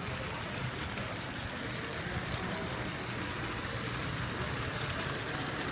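Steady low rumble and hiss of a large exhibition hall's background noise.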